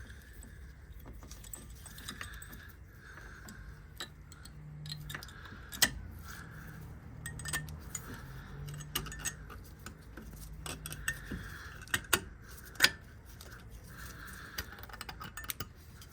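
Metal clicks and clinks of brake pads and their steel clips being handled and fitted into the caliper bracket, sharpest about six seconds in and in a quick cluster around twelve to thirteen seconds in.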